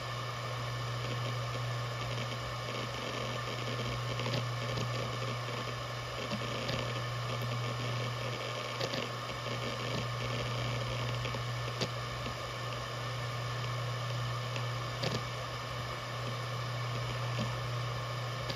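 Maxtor DiamondMax 17 160GB 7200 RPM hard drive spinning with a steady low hum and buzz, which the owner calls normal for these models. A few faint ticks come through now and then.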